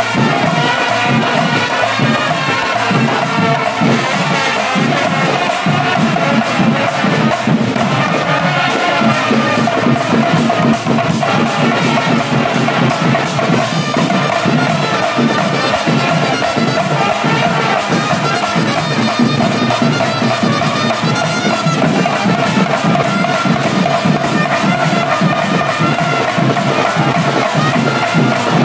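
Kawadi band playing: several trumpets sound a melody over a fast, steady beat on stick-beaten barrel drums and clashing hand cymbals.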